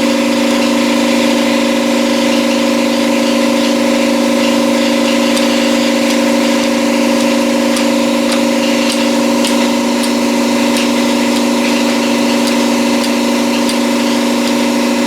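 A machine running with a steady, unchanging hum, with faint light clicks here and there over it.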